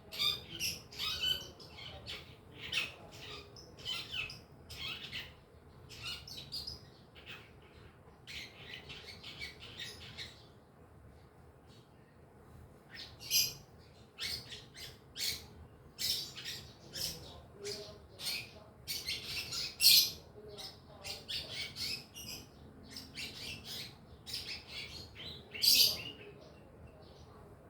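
A young long-tailed shrike (cendet) chattering in quick runs of short, scratchy notes as it practises its song. The runs come in bursts, with a lull of a couple of seconds midway.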